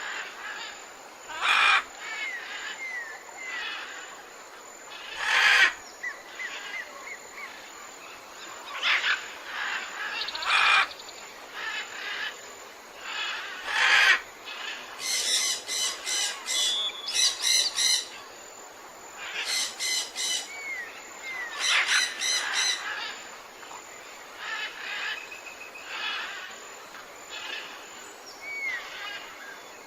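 Several wild birds calling in a forest, over a steady background hiss. Short loud calls come every few seconds, bursts of rapidly repeated chattering notes fill the middle, and soft downward-slurred whistles come and go.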